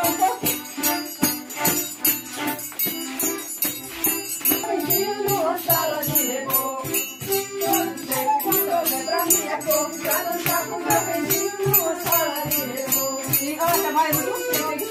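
Music with a fast, steady percussion beat of shaken and struck rhythm instruments under a moving melody.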